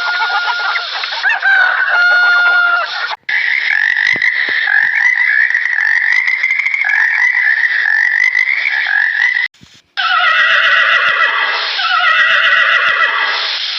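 A rooster crowing, then after a sudden cut about three seconds in a steady, high-pitched animal chorus, then after another cut near ten seconds a horse whinnying twice, each call falling in pitch.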